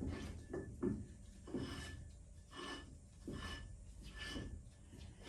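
Backplate being tightened onto a lathe's L00 threaded-collar spindle nose: a series of short metal scraping and rubbing strokes, about one a second.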